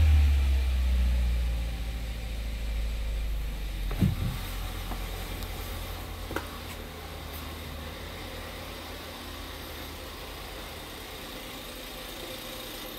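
2013 Ford Fusion's 1.6-litre EcoBoost turbo four-cylinder engine running, settling down from a light rev toward a steady idle. A sharp thump comes about four seconds in, and a small click a couple of seconds later.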